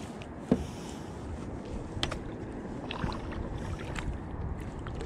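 Steady low wind and water noise around a kayak, with a sharp knock about half a second in and a few light clicks as a spinning reel is handled.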